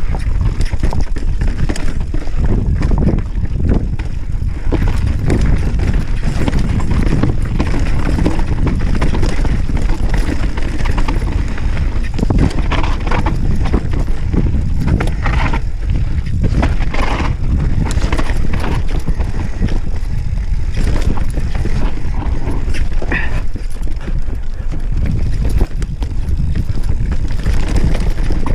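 Mountain bike descending rock and dirt trail, heard from a chest-mounted camera: a steady low rumble from the tyres and the moving air, with constant rapid rattling and clattering from the bike over the rough ground.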